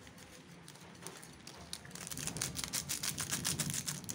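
Fried peanuts sprinkled onto a bowl of instant noodles, a rapid patter of small clicks that starts about halfway through and grows denser.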